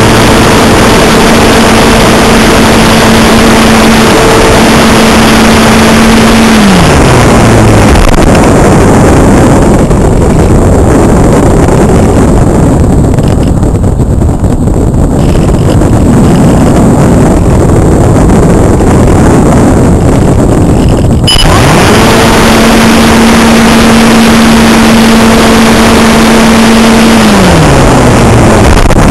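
Multiplex Cularis electric model glider heard through its on-board camera: loud wind rush over the microphone with the motor's steady hum. About seven seconds in the motor winds down and cuts out, leaving only wind. It starts again with a click and a rising hum about two-thirds of the way through, holds, and is throttled back again near the end.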